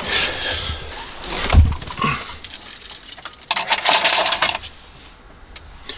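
Car keys jangling and clinking as they are picked up and handled, with scattered knocks and a longer burst of jingling about three and a half seconds in.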